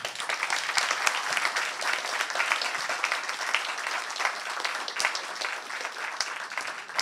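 Audience applauding, starting all at once and keeping up steadily.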